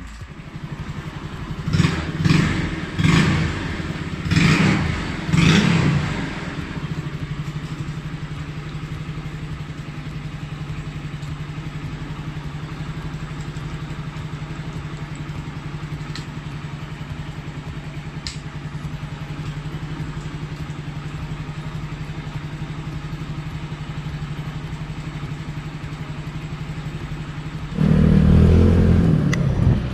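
Yamaha Mio scooter's small air-cooled single-cylinder four-stroke engine, blipped a few times on the throttle in the first six seconds, then idling steadily. It runs on freshly replaced engine-support rubber bushings, which the owner finds smooth, with the vibration gone. Near the end it turns suddenly louder as the scooter is ridden.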